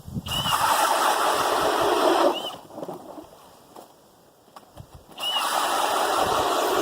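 Cordless-drill-powered ice auger boring through lake ice, twice, each run about two seconds long with a quiet pause between.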